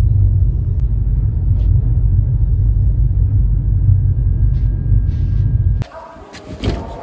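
Steady low rumble of a moving passenger train, heard from inside the coach. About six seconds in it cuts off abruptly to a much quieter coach interior with a few clicks.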